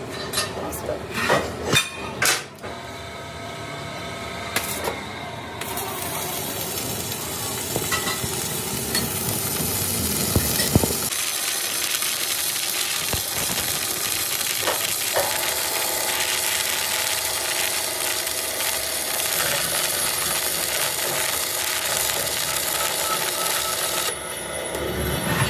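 Stick (arc) welding on a steel truck wheel rim: a steady crackling hiss from the electrode's arc that starts about six seconds in and stops shortly before the end. It is preceded by a few sharp knocks of metal on metal.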